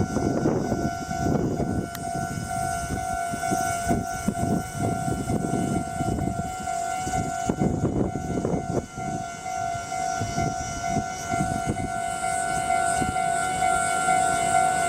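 Japanese level-crossing warning bell ringing its steady, repeating kan-kan tone while a Meitetsu train passes through the crossing with a low rumble and an uneven clatter of wheels over the rail joints.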